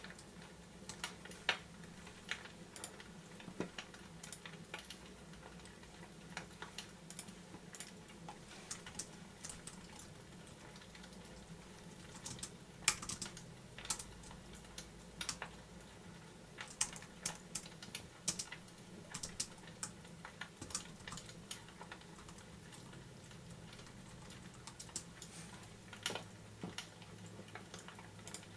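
Irregular sharp clicks and crackles, a few each second and varying in strength, over a faint steady low hum.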